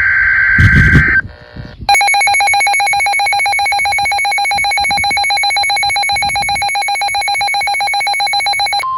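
A NOAA weather radio sounding a test tornado warning alert. It opens with the end of the buzzy SAME data burst, which stops about a second in. About two seconds in, the radio's own alarm starts: a loud, rapidly pulsing electronic beep that lasts until just before the end.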